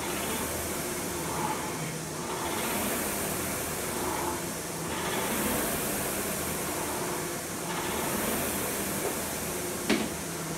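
Concept2 Model E rowing machine's air flywheel whirring, swelling with each pull and easing off in between, every few seconds. A sharp click near the end.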